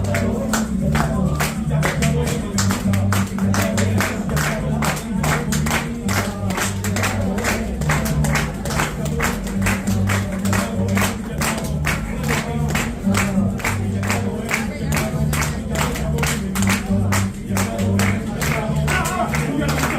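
Traditional Colombian dance music with a fast, steady percussion beat of about three strikes a second over a bass line.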